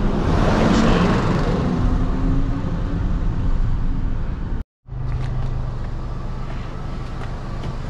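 Motor vehicle on the move: steady engine and road noise, loudest in the lows. Just past halfway it is broken by a brief silent gap, after which a steady low engine hum continues.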